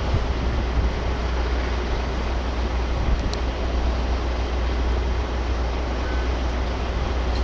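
Steady low rumble under a hiss of outdoor background noise, with a faint brief high tone about six seconds in.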